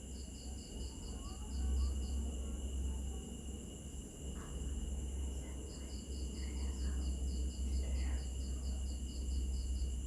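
Crickets and other night insects: a steady high-pitched trill, with one cricket chirping in quick pulses, about four or five a second. The pulses stop about two seconds in and start again about six seconds in. A low rumble runs underneath.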